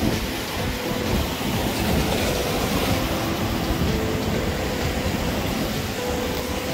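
Sea surf churning and washing against the rocks at the foot of the pier: a steady rushing noise with a deep rumble.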